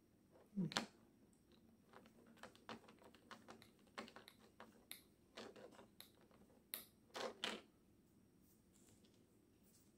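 Light, scattered clicks and taps from a hex driver working screws into a plastic RC car wing mount as the parts are handled, with a couple of louder knocks just under a second in and again around seven seconds in.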